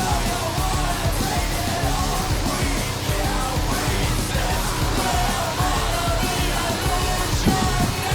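Music: a song with a loud singing voice over a dense accompaniment and a steady low beat.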